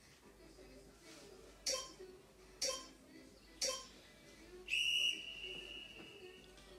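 Electronic timer counting down: three short pips about a second apart, then a long high beep lasting nearly two seconds, the usual signal that a timed interval is over.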